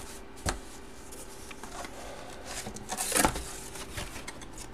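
Large photo print being handled and set aside, paper and cardboard rustling, with a sharp tap about half a second in and a scraping rustle about three seconds in, over a faint steady hum.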